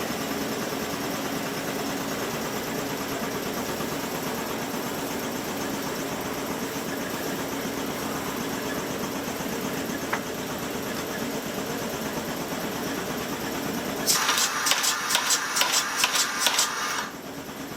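A steady machine hum, then, near the end, about three seconds of rapid power-hammer blows on a hot steel billet, roughly five strikes a second, which then stop.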